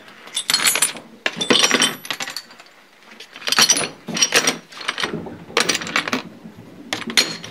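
Small metal parts from a rotary table clinking against each other as they are handled and dropped into a plastic basket, in several quick clusters of clinks.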